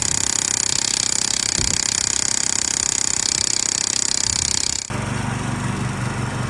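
A machine or power tool running with a fast, even pulsing that cuts off suddenly about five seconds in. A lower, steady machine hum follows.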